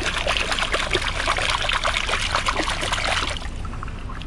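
Glass bottle being washed by hand in river water: splashing and sloshing that stops shortly before the end.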